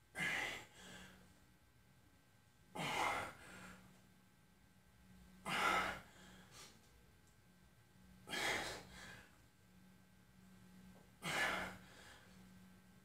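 A man's forceful breathing with the effort of pressing dumbbells overhead: a sharp exhale with each rep, five times at a steady pace about three seconds apart, each followed by a fainter breath.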